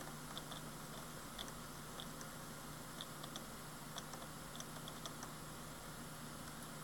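WD Caviar Black 2TB hard drive running with a steady hum, its read/write heads seeking in short, irregular clicks that stop about five seconds in.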